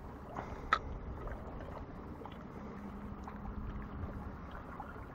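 Faint, steady outdoor wind and water sounds, with one short, sharp click less than a second in.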